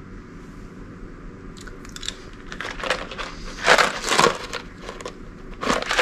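A small cardboard candy box being torn open and handled: a few short bursts of tearing and rustling in the second half.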